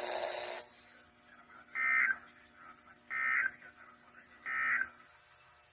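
Three short bursts of NOAA Weather Radio EAS end-of-message data tones (SAME digital warble), about 1.4 s apart, marking the end of the severe thunderstorm watch broadcast. A faint radio hum runs under them and cuts off just after the third burst.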